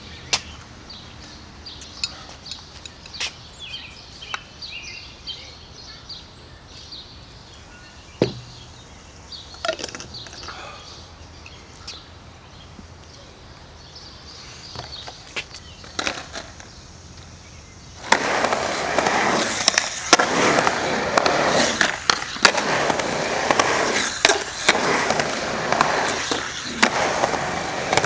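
A skateboard rolling through a concrete bowl: a loud, continuous rumble of urethane wheels on concrete with repeated sharp clacks, starting suddenly about two-thirds of the way through. Before that, only quiet outdoor background with scattered small clicks.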